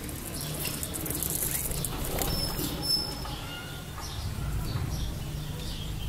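Budgerigars chirping in short scattered calls, with rustling, likely wings or feathers, in the first couple of seconds.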